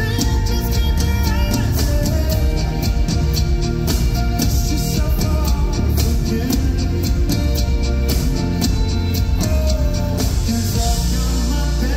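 Live band music played through a concert PA: a male lead vocal over keyboards and a drum kit beating steadily. Near the end the drum beat drops out, leaving a held chord.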